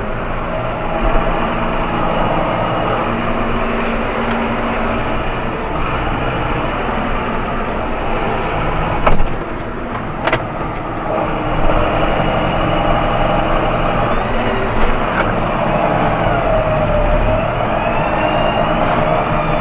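John Deere 7530 tractor's six-cylinder diesel engine running steadily, heard from inside the cab. Two sharp knocks come about halfway through, and a whine dips and rises again near the end.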